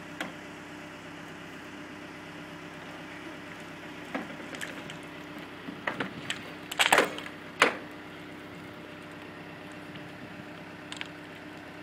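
Steady drone of a running machine engine, with a cluster of sharp knocks and clatters on the site about four to eight seconds in, the loudest two close together near seven and a half seconds.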